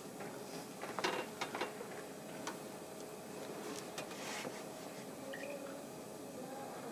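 Quiet pause before a flute ensemble plays: faint room noise with scattered small clicks and rustles as the players lift their flutes and settle, with a few clicks close together about a second in.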